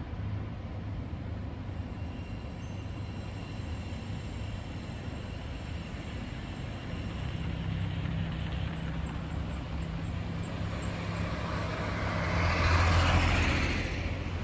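Road traffic: a steady low hum of vehicle engines. About halfway in, a heavier engine drone comes in, and near the end one vehicle passes close, swelling to the loudest point and then falling away quickly.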